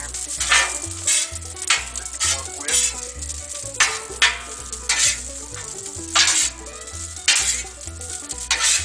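Spatula scraping and turning rice in butter across a hot Blackstone flat-top griddle, with steady sizzling. Sharp scrapes come irregularly, about one or two a second.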